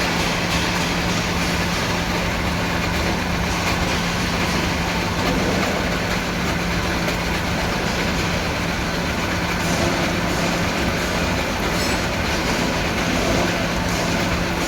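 Lathe running steadily: a constant low hum under dense, even mechanical noise.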